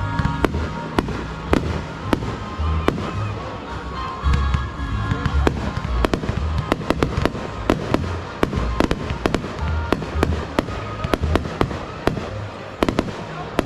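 Fireworks going off: a quick run of sharp cracks and bangs, most rapid in the second half, with deep booms underneath. Music plays in the background.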